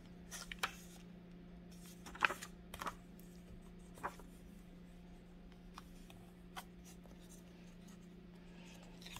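Thin Bible paper being handled: a few brief rustles and scrapes as the map pages are turned and smoothed flat by hand, over a faint steady hum.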